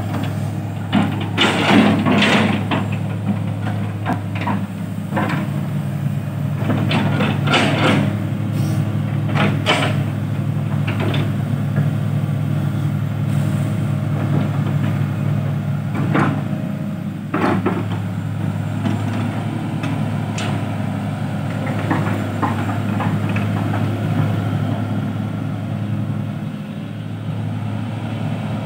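Shanghai diesel engine of an XGMA XG822EL crawler excavator running at a steady drone while the boom and bucket work, with scattered knocks and clatter from the bucket digging into the brushy bank.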